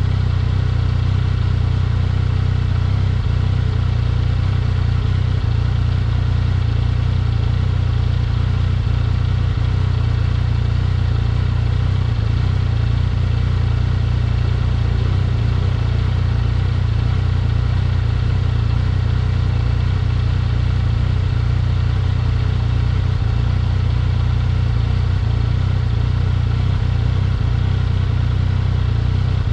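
Yamaha XSR900 motorcycle's three-cylinder engine running at a steady speed while riding, with no revving or gear changes.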